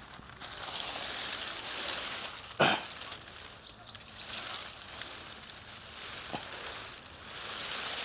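Dry fallen leaves rustling and crunching under shuffling footsteps, with one louder crunch about two and a half seconds in.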